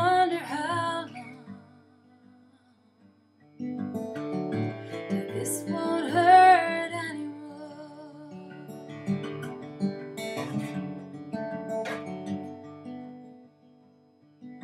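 Slow folk ballad on acoustic guitar. The music drops to near silence for about two seconds soon after the start. The guitar then comes back under a lead melody that bends up and down and wavers in places.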